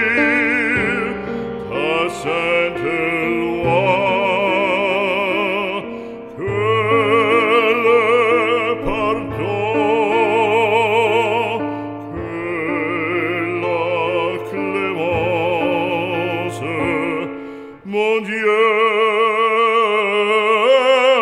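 Background music: an operatic voice singing long held notes with a wide vibrato over a sustained accompaniment, with short breaths between phrases.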